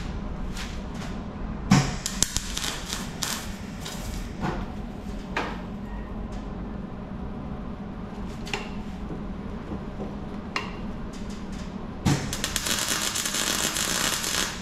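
MIG welder at work on sheet steel: scattered sharp taps and clanks of metal, a short burst of crackle about two seconds in, then a steady crackling weld run of about two and a half seconds at the end, under a steady low hum.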